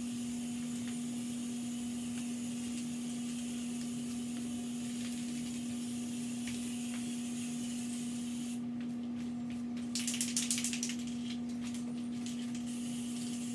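Aerosol spray paint can hissing as paint is sprayed onto wooden furniture, loudest in a burst of quick pulses about ten seconds in, over a steady low hum.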